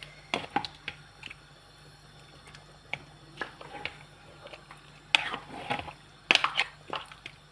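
Scattered light clicks and knocks of kitchen utensils against a cooking pot, a few coming in quick clusters near the end, over a faint steady hum.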